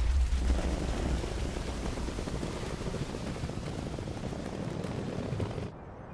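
Spiked tyres of the Audi e-tron demonstrator clawing up hard, steep snow with some wheel spin, heard as a dense, loud crackling rattle over a low rumble. It drops off sharply near the end.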